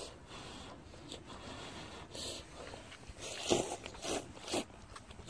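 A person slurping hot ramen noodles, several short slurps mostly in the second half.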